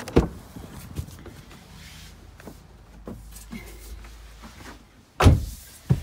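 A Ram ProMaster City cargo van's door: the latch clicks open at the start, a few small knocks and handling sounds follow, and a loud heavy thud comes about five seconds in as the door is shut.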